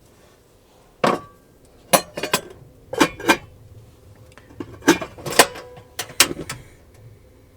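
Cookware clanking and clinking as a cast iron skillet is handled: about nine sharp knocks in irregular groups.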